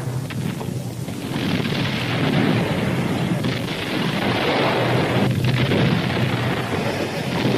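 A steady low rumbling roar, louder from about a second in.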